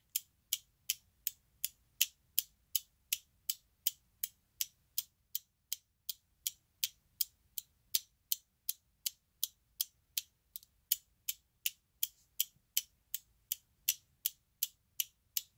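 Alfa-Zeta electromechanical flip seven-segment displays clicking as their segments are flipped one after another by coil pulses: a sharp click about three times a second, steady and even.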